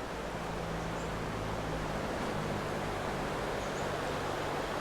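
Steady rushing of the Ping River's heavy flow through a weir, an even wash of water noise, with a faint low hum under it.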